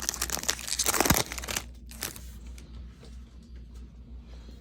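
A 2002 Topps baseball card pack wrapper being torn open and crinkled, loud and dense for about the first second, then dropping to quieter rustling and handling.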